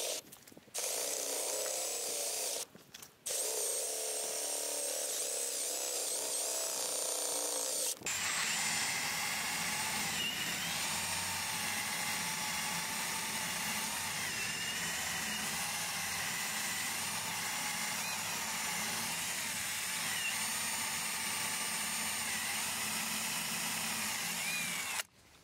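Power drill with a 3/8-inch bit drilling out the ignition lock tumbler of a steering column so it can be removed without a key. It stops briefly twice in the first three seconds, then runs steadily with a wavering pitch, the sound getting fuller and lower from about eight seconds in, and stops just before the end.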